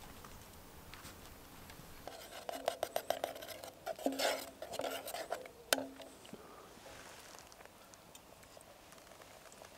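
Metal clinking and scraping in a camping pot of thick pea soup cooking over a fire, as when it is stirred. A run of quick clicks begins about two seconds in, a scraping rush comes around the middle, and one sharp clink ends the busy part.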